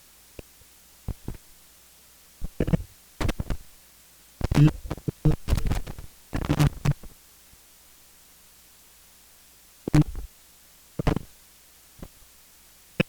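Wordless vocal sound poetry: irregular short bursts of throaty, guttural vocal sounds and mouth clicks, with pauses between, busiest from about two to seven seconds in.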